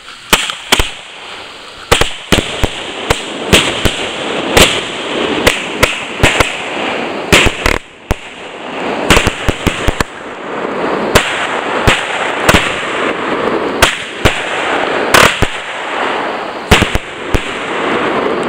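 Consumer fireworks cake firing a long, irregular string of sharp bangs, several a second at times, over a steady hiss, with a brief lull about eight seconds in.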